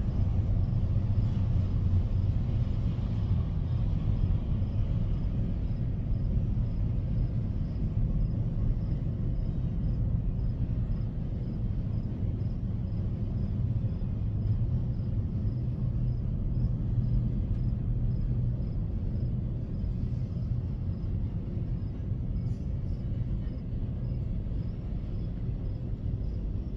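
Double-stack intermodal freight train rolling past, a steady low rumble of steel wheels on the rails that eases slightly about halfway through.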